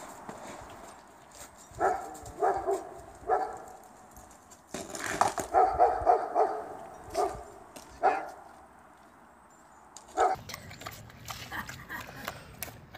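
Dog barking in short, separate barks, a second or so apart, then a quick run of barks about five seconds in, followed by a few more single barks.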